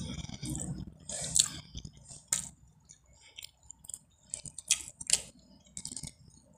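A person chewing a mouthful of spaghetti close to the microphone: an irregular run of wet mouth smacks and clicks.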